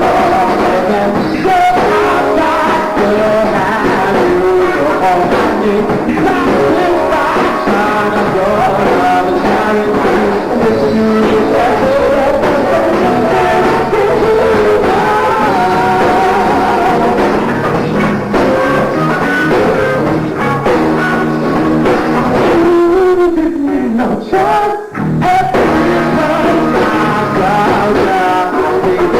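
Live R&B band playing a song, with singing and guitar over the full band. The sound dips briefly about three-quarters of the way through.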